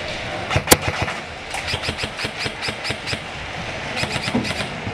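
Airsoft guns firing: one loud sharp shot early, then a run of evenly spaced shots at about five or six a second, and a quicker burst of about five shots near the end.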